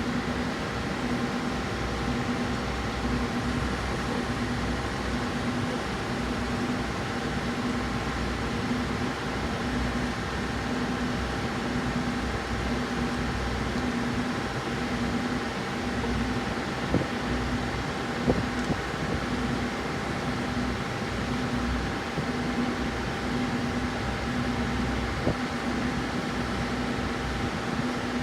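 Steady machine hum like a fan running, pulsing gently about once a second, with a few light clicks.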